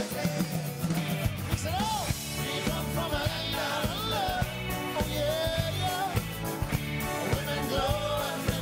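Music with a sung melody over a band, with a steady bass line coming in right at the start.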